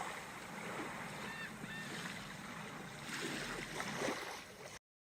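Sea surf washing in a steady noisy wash that swells a little about three seconds in, with two faint high chirps about a second and a half in. It cuts off abruptly near the end.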